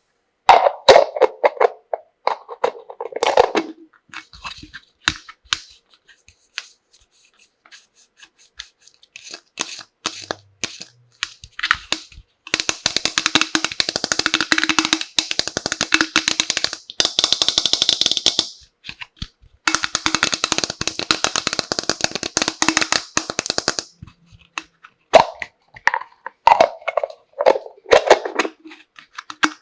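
Plastic toy tea-set pieces and their packaging being handled: scattered sharp clicks and taps, then two long stretches of rapid crackling in the middle, with more clicks and taps near the end.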